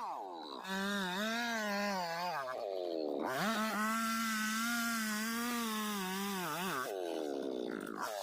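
Chainsaw revved in three bursts, its pitch sinking each time the throttle is let off. In the middle burst a steady hiss rides over the engine.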